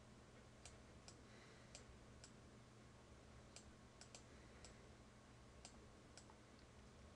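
Near silence with about ten faint, irregularly spaced clicks: a stylus tip tapping on a pen tablet while digits are handwritten.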